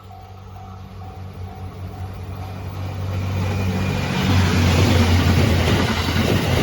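Twilight Express Mizukaze train approaching a level crossing, its engine hum and running noise rising steadily and getting much louder from about four seconds in. A crossing warning bell rings about twice a second at first and is then drowned out.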